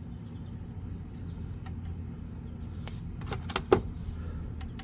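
A few sharp metallic clicks and clinks about three seconds in, the last the loudest, as a socket wrench works loose the oil drain plug on the oil pan; a steady low hum runs underneath.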